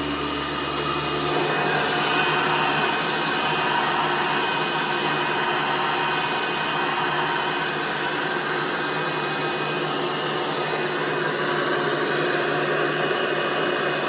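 2001 Hoover Soft and Light vacuum cleaner running steadily, its motor whirring at an even pitch.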